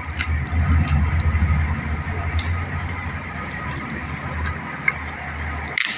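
Rice being mixed with curry by hand on a plate: soft squishing and small scattered clicks over a steady low rumble, with one brief louder burst near the end.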